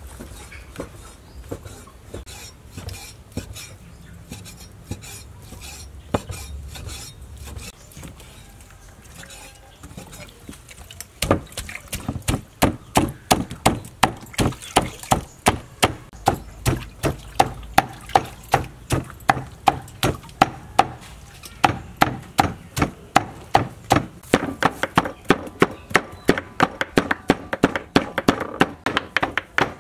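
Cleaver chopping raw pork into mince on a wooden chopping board: loud, steady, rapid strikes, about three a second, starting about eleven seconds in. Before that, only quieter scattered clicks and handling sounds.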